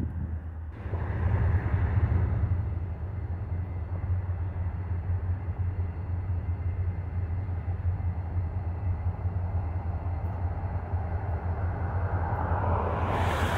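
Norfolk Southern diesel freight locomotives approaching at slow speed: a steady low engine drone that grows louder about a second in, with a louder rushing noise building near the end.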